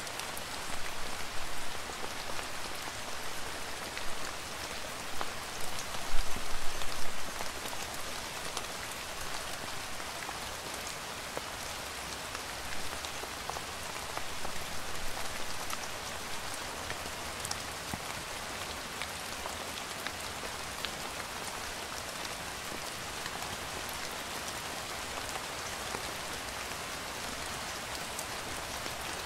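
Steady rain falling: a dense patter of drops with scattered sharper single drop hits. It is louder and more uneven for the first seven seconds or so, then settles into an even, steady patter.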